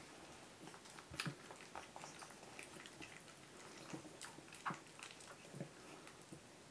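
Newborn puppies suckling from their mother: faint, irregular smacking and clicking sounds.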